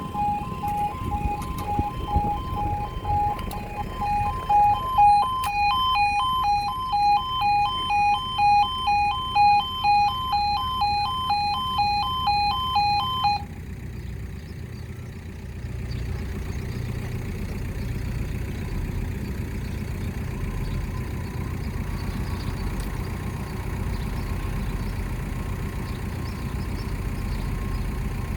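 Level crossing warning alarm sounding a pitched two-tone warble, pulsing about twice a second before cutting off abruptly about halfway through. Then a steady low engine rumble.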